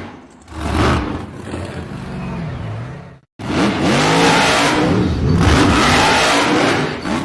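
Off-road 4x4 engine revving, its pitch rising and falling with the throttle. The sound cuts off dead a little over three seconds in, then more engine revving follows.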